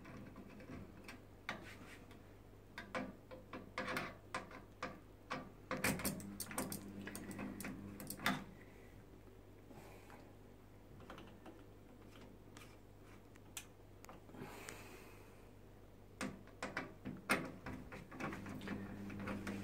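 Screwdriver turning screws out of a Teka oven's sheet-metal panel, with irregular small metallic clicks, taps and scrapes as screws and parts are handled. A faint steady low hum runs underneath.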